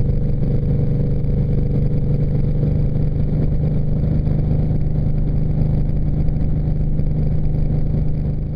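Yamaha V-Star 950's air-cooled V-twin running steadily through a Rush slip-on muffler with a 1.75 baffle, really loud, at an even pitch with no revving up or down.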